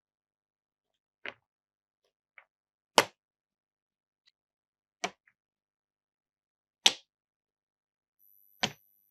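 Single sharp wooden knocks from a Cuboro wooden marble run, five or six of them about one to two seconds apart, with silence in between. Two knocks, about three and seven seconds in, are the loudest.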